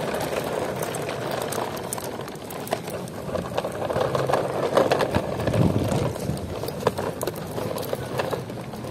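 Plastic toy trucks rolled across rough concrete: a steady gritty rumble of the hard plastic wheels, with many small clicks and rattles, loudest about halfway through.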